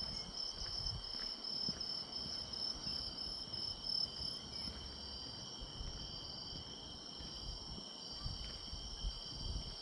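Autumn grass insects (crickets) singing: a steady high trill together with a higher, pulsing chirp that fades about halfway, over a low rumble.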